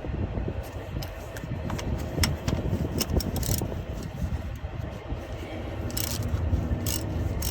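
Hand tools working on a truck starter's bolts: irregular metallic clicks and scrapes, some in quick clusters, over a steady low rumble.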